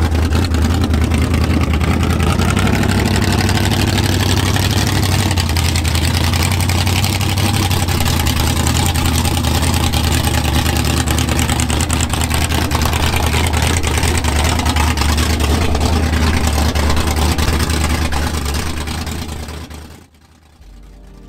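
A white Ford Galaxie's engine running, loud and steady with most of its sound low-pitched. It fades and cuts off about a second before the end.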